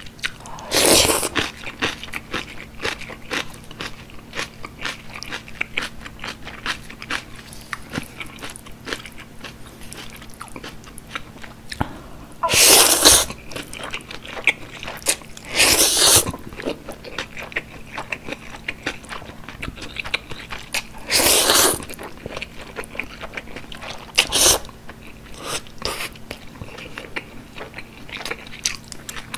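Close-miked eating of black-bean-sauce (jjajang) instant noodles with kimchi: steady wet chewing and crunchy bites with many small mouth clicks, broken by about five louder slurps of noodles.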